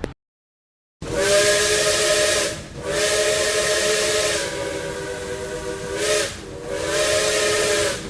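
Multi-tone steam whistle blowing three long blasts, a chord of several steady tones over a loud hiss of steam; the first begins about a second in, and the middle blast is the longest and weakens partway through.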